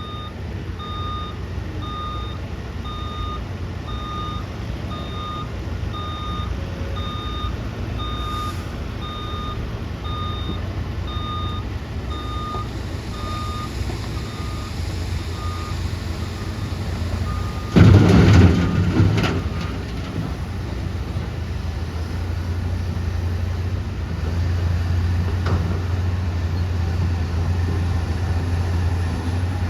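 Diesel tipper truck's reversing alarm beeping evenly, a little under twice a second, over a steady low engine hum; the beeping stops about halfway through. A little later comes a loud burst of noise lasting about a second and a half, and the engine hum grows louder near the end.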